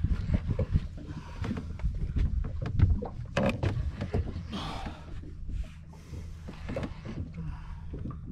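Low steady rumble of wind and water around a small drifting boat, with scattered clicks and knocks from the rod and conventional reel as a heavy fish is pumped and reeled up from depth.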